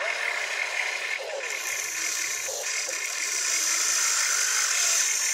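RC toy excavator's small electric motors and plastic gearboxes whirring and rattling as the boom and bucket move. The whine rises a little in level partway through.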